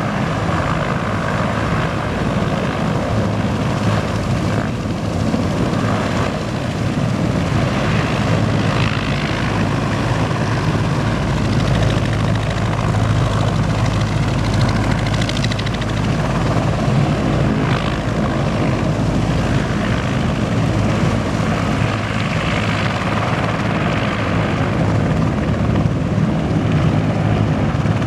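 Sikorsky CH-53G heavy transport helicopter taxiing on the ground, its twin turboshaft engines and rotors running steadily and loud.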